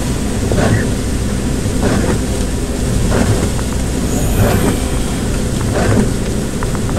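Steady rumble of a car driving on a wet road, heard inside the cabin, with the windscreen wipers swishing across the glass about every second and a half.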